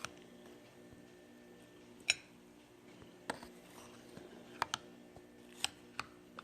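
Scattered light clicks and clinks of kitchenware as wet cat food is served into dishes, about eight in all, the loudest one about two seconds in and ringing briefly. A faint steady hum lies underneath.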